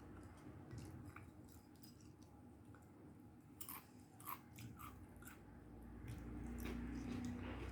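A person chewing food close to the microphone, with a run of sharp crunches about halfway through.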